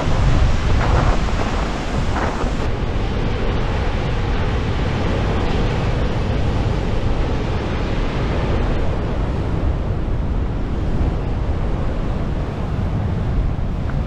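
Rough storm surf breaking and washing in, with strong wind buffeting the microphone in a steady low rumble.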